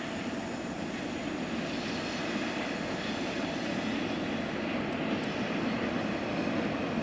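Distant train crossing a viaduct across the valley: a steady rumble that slowly grows louder.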